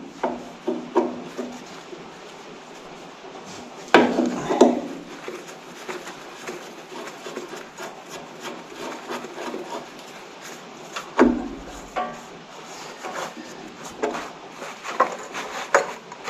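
Scattered knocks, clicks and rubbing of hand tools and parts being handled at workshop work, with louder knocks about four seconds in and again about eleven seconds in.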